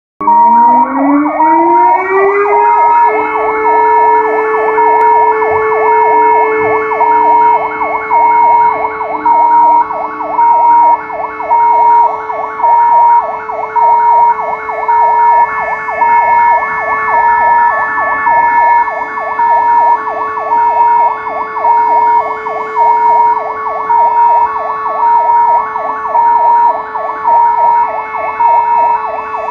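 Siren winding up over about three seconds, then holding a steady wail, with a second tone switching back and forth between two pitches throughout. It is the 'W hour' memorial siren sounded at 17:00 on 1 August for the Warsaw Uprising anniversary.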